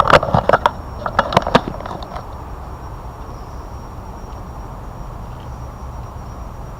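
Dry leaves and twigs crackling and snapping underfoot, a quick cluster of sharp snaps in the first second and a half, then a steady outdoor background.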